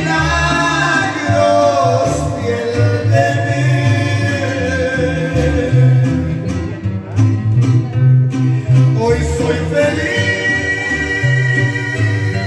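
Small Mexican-style string group playing a Christian song, with guitarrón bass notes under strummed guitars. A man sings over them into a microphone, amplified through PA speakers, with a sung line near the start and another held line near the end.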